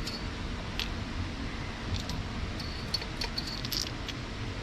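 Faint scattered clicks and light metallic rattles of hand tools and engine parts being handled during spark plug removal, over a steady low background hum.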